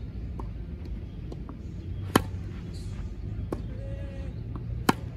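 Tennis rally: two sharp racket-on-ball strikes from the near player, about two seconds in and near the end, some two and a half seconds apart. Between them come fainter knocks from the ball bouncing on the court and the opponent's hits across the net.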